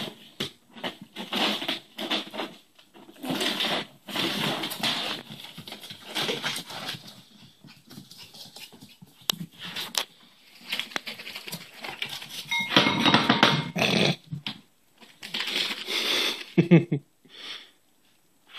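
Cairn terrier puppy vocalising in repeated short bursts as it worries at a ferret hidden in a foil tube.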